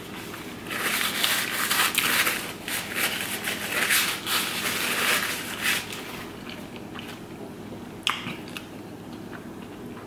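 Eating and food-handling noises close to the microphone: about five seconds of dense crackling and crinkling. A sharp click follows about eight seconds in, as a paper milkshake cup is picked up.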